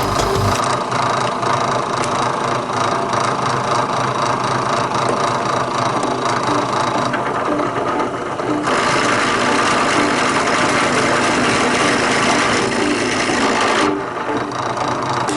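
Drill press running with its bit boring into wood. The cutting noise eases off about seven seconds in, comes back strongly about two seconds later, and drops away again near the end.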